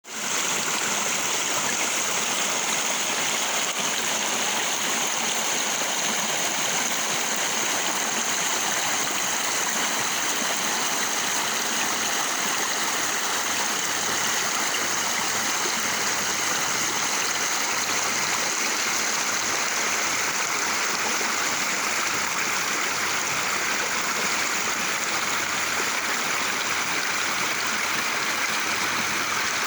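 Steady rush of flowing water, an even hiss that holds the same level throughout.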